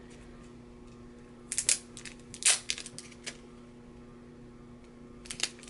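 Crinkling and crackling of a small packaging packet being handled and opened by hand: a few short sharp crackles, the loudest about two and a half seconds in, over a faint steady hum.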